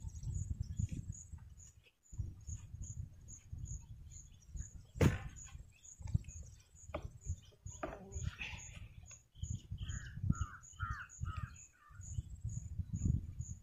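Field ambience: wind rumbling on the microphone, with a high chirp repeating about twice a second, typical of an insect. A sharp knock sounds about five seconds in, and a bird, likely a crow, calls several times in quick succession about ten seconds in.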